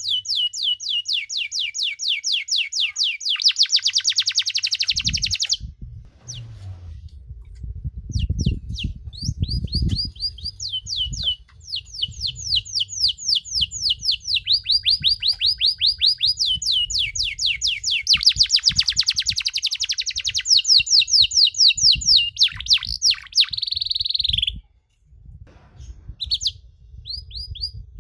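Domestic canary singing long phrases of fast, rapidly repeated high trill notes, broken by short pauses and a longer pause near the end. A low rumble runs underneath from about five seconds in.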